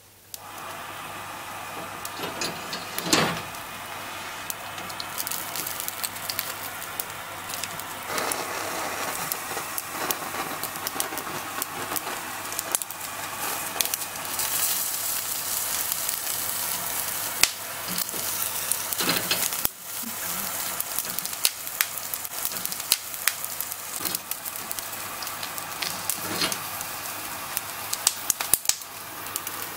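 Boiled, sea-salted king crab legs sizzling on a wire grill over an open gas flame, a steady hiss full of sharp crackles and pops. A few louder knocks come through, the loudest about three seconds in.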